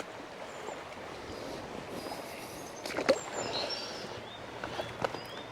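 Wading upstream through a rocky river: steady running water with splashing and a few sharp knocks of boots on stones, the loudest about three seconds in.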